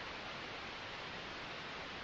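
Steady synthetic white noise: an even, unchanging hiss with no events in it.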